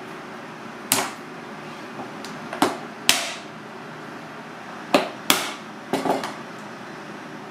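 A knife striking cooked mud crab claws on a plastic cutting board to crack the shells: about seven sharp knocks, several coming in quick pairs, over a steady kitchen hum.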